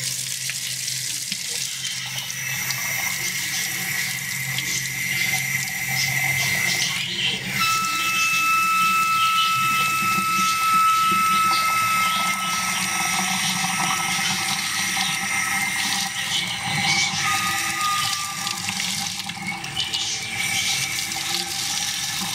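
Water tap running with a steady rush of water and a thin whistling tone over it, the abnormal noise the faucet itself makes. The whistle jumps in pitch a few times and dies away a few seconds before the end.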